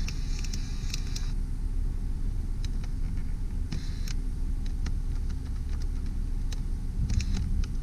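1995 Ford Taurus idling with the heater fan running, heard from the cabin as a steady low rumble. Over it come several clicks of the power-mirror switch and short whirs of the mirror motors near the start, about four seconds in and near the end.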